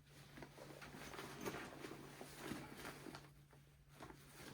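Faint rustling and soft scraping of a backpack's fabric as a hand moves about inside a pocket, over a steady low hum.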